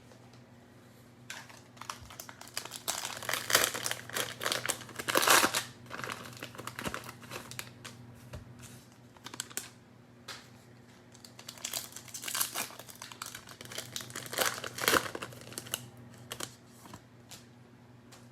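Plastic cello wrapper of a Panini Mosaic football card pack being torn open and crinkled, in two spells of crackling separated by a quieter stretch.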